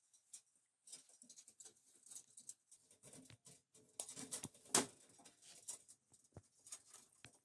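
Light metallic clicking and rattling of a galvanised weld-mesh cage trap as its wire trigger and door are handled and bent with pliers, with one sharper click a little under five seconds in.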